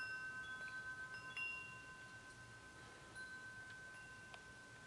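Homemade three-tube metal wind chime ringing faintly: three notes hang on together and slowly die away, renewed by light taps of the striker about a second and a half in, again near three seconds, and once more near the end.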